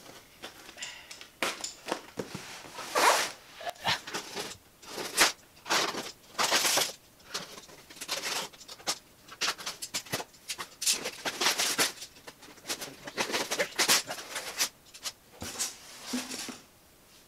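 Utility knife slitting packing tape and plastic wrap along the seam of a cardboard box: a series of short, uneven ripping strokes, one after another.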